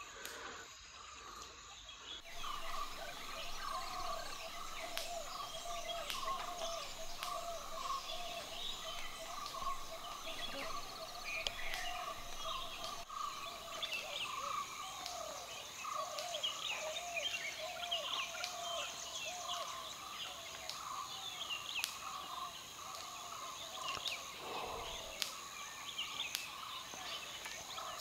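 Morning forest chorus: many birds calling in a dense, continuous chatter of short repeated notes, over a faint steady high insect drone.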